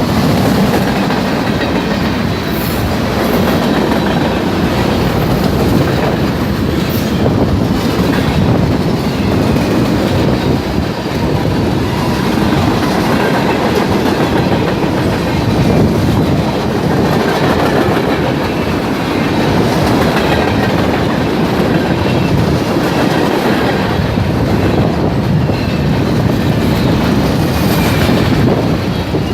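Freight train cars rolling past, their wheels clattering over the rail joints in a loud, steady run.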